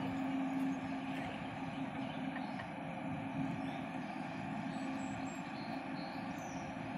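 A paddlewheel riverboat passing on the river: a steady low engine hum over a wash of noise, with the hum weakening after about three seconds.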